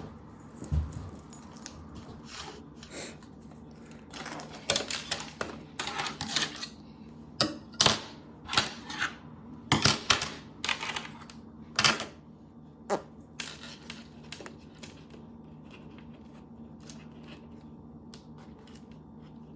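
A run of light, irregular clicks and taps of small things being handled on a table, thickest in the middle, then dying away over the last few seconds.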